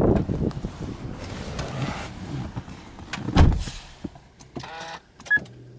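Someone opening a car's driver's door and getting into the seat: rustling and handling noise, with a heavy thump about three and a half seconds in. A short beep follows near the end, then a low steady hum.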